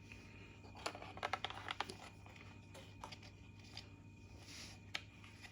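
Faint handling noises: a scatter of small clicks and rustles as the wiring and plastic parts of the charging socket cover are pressed into place by hand, over a steady low hum.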